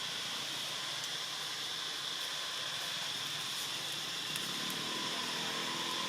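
Steady high-pitched insect drone over an even hiss, holding level throughout.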